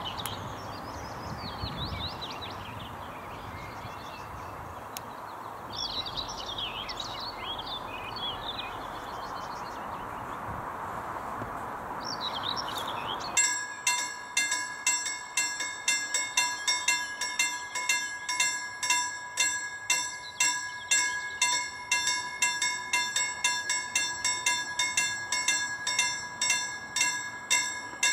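Birds singing over a steady outdoor hiss, then about halfway through a level crossing warning bell starts ringing, about two strikes a second, the signal that a train is approaching and the barriers are lowering.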